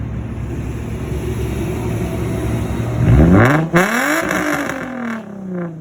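Straight-piped Infiniti G35 coupe's 3.5-litre V6 exhaust, heard from behind the car: idling, then revved once about three seconds in. The pitch climbs quickly and falls slowly back, and a second rev starts right at the end.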